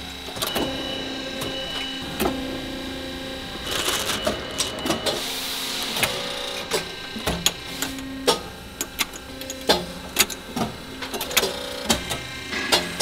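Press machine fitting button tips into the holes of a steel rock drill head, with frequent sharp metal clicks and clanks and a low hum that comes and goes. A hiss rises about four seconds in and fades by about six seconds.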